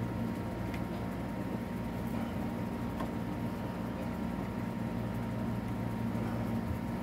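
Steady low machine hum with a faint higher whine, and a few faint clicks.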